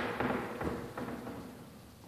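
A few light knocks and thuds, about half a second apart, with room echo, dying away about a second in.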